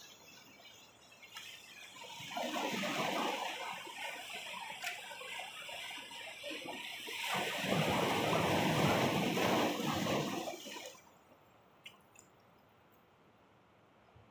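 Sea waves breaking and washing over the boulders of a rocky breakwater: two surges, about two and seven seconds in, the second louder and longer, dying away about eleven seconds in.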